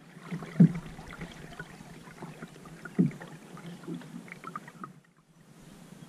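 Canoe being paddled on calm water: two paddle strokes, each with a low thud, about two and a half seconds apart, with small drips and splashes from the paddle blade in between.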